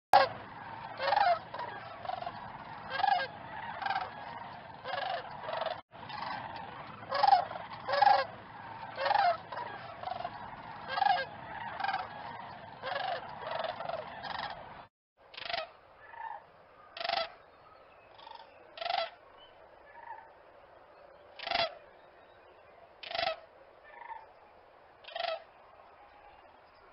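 Cranes calling: loud calls repeated about once a second over a steady background hiss. About halfway through the hiss drops away and the calls come more sparsely, every second or two.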